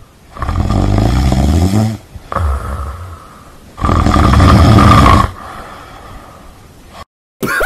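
A tabby cat purring loudly and close up while lying on a person's head, a rough low rumble that comes in three swells with quieter breaths between.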